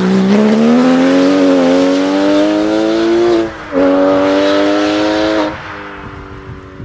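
Rally car engine at full throttle, its note rising as it accelerates, with a brief break for a gear change about halfway through. Shortly after, the engine sound drops off sharply and fades away.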